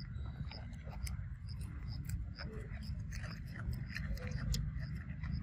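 A macaque biting and chewing kernels off an ear of corn on the cob: a scatter of short, crisp clicks and crunches.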